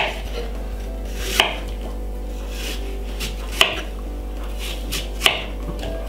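Knife cutting a peeled green apple into pieces on a wooden chopping board, the blade knocking on the board four times, a second or two apart, over a low steady hum.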